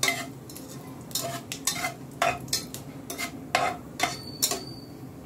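A metal spoon stirring and scraping in a pressure cooker, with a dozen or so irregular clinks, over a steady low sizzle of whole spices frying in hot oil as they are tempered.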